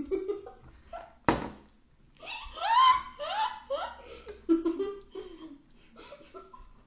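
Girls laughing with their mouths full of pancake. About two seconds in comes a run of high-pitched giggles, each falling in pitch, and a sharp knock is heard about a second before it.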